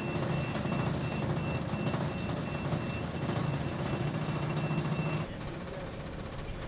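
A steady mechanical drone with a low hum and a faint high beep pulsing evenly over it. Both cut off abruptly about five seconds in, leaving a quieter steady rumble.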